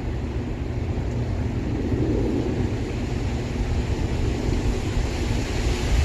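Strong wind blowing through trees, rumbling on the microphone with a steady rushing hiss.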